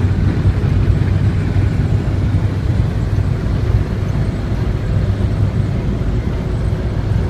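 Steady low rumble of a vehicle's engine and tyres on the road, heard from inside the cabin while driving.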